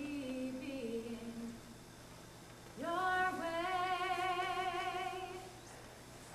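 A woman's voice singing unaccompanied. A short phrase steps down in pitch, then after a pause she holds one long note with vibrato that fades away.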